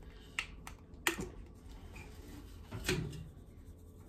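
A few sharp plastic clicks and taps from a spice jar's flip-top cap being opened and the jar handled over a plate, with a duller knock near three seconds in.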